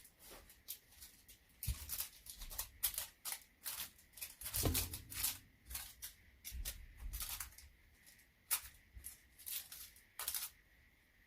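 Parcel packaging being handled and opened: a busy run of crinkles, taps and scrapes, with a dull thump about four and a half seconds in.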